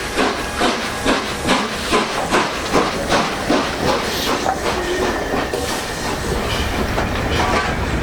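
Three-cylinder steam locomotive 60163 Tornado working past at low speed, its exhaust beating evenly about two and a half times a second with a hiss of steam. After about four seconds the beats blur into a steady rumble and hiss.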